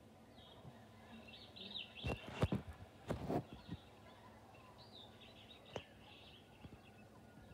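Faint, high bird-like chirping in two spells, with a cluster of sharp knocks and rustles about two to three and a half seconds in.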